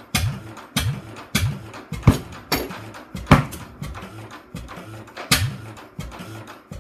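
Arrow oilfield gas engine running slowly on its first start attempt, a sharp exhaust bang about every two-thirds of a second, some firings stronger than others.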